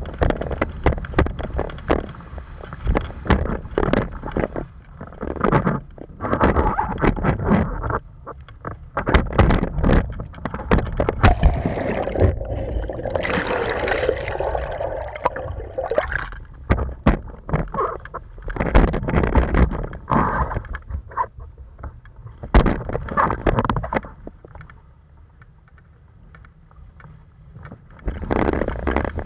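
Windsurf board planing over chop: water rushing and slapping against the board and hitting the mounted camera in sharp splashes, with wind buffeting the microphone. Around the middle, water washes over the camera in a denser rush, and it goes quieter for a few seconds near the end.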